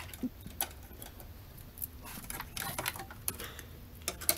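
Scattered light clicks and taps of wiring harness clips and connectors being handled and unclipped in a car's engine bay, coming in small clusters.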